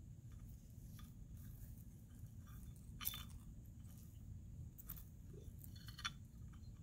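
Faint scattered clicks over a low steady rumble, with the clearest clicks about three seconds in and again near the end.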